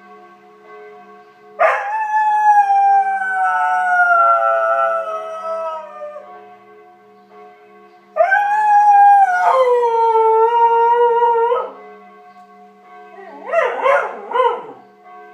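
Border collie howling along with ringing church bells, whose steady ringing tones hold underneath: two long howls, the first sliding slowly down in pitch, the second dropping a step partway through, then a few short broken howls near the end.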